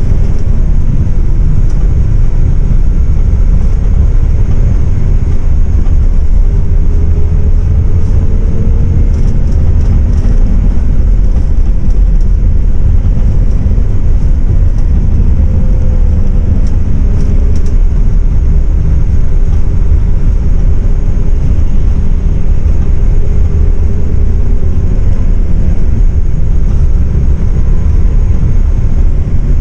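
MAN 18.350 Modulo bus heard from inside the cabin, running on the highway: a loud, steady low rumble of engine and road noise, with the engine's pitch rising and falling now and then.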